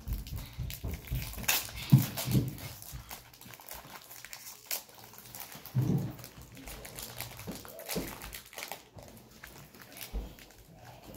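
Foil booster-pack wrapper crinkling and rustling as it is handled and torn open, in scattered sharp crackles, with a few short low sounds about 2 and 6 seconds in.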